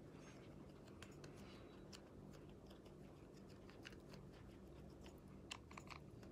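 Near silence over a low steady hum, with faint scattered taps and small clicks of hands handling a makeup cushion compact and patting foundation onto the face; a short cluster of sharper clicks comes about five and a half seconds in.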